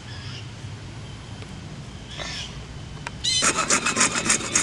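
Hacksaw starting to cut through half-inch PVC pipe about three seconds in, in quick, even back-and-forth strokes.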